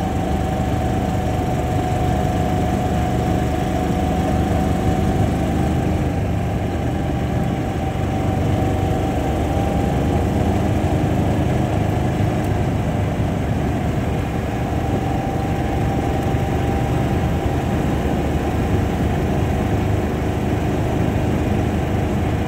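Kawasaki Mule side-by-side running steadily while driving along a gravel road: a constant engine drone with a steady whine over it, and tyre noise on the gravel.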